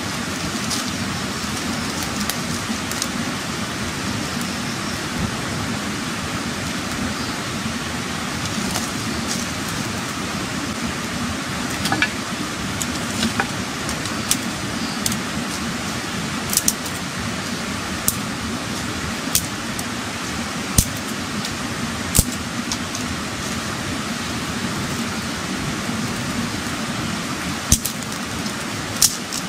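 Small wood-and-leaf fire crackling, with a sharp pop every second or two over a steady background hiss.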